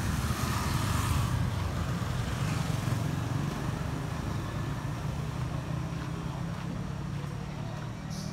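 A motor vehicle's engine running with a steady low drone, slowly growing quieter toward the end.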